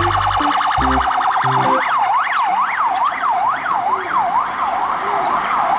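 Police-car siren: a rapid warble that changes about two seconds in to a wail sweeping up and down about twice a second.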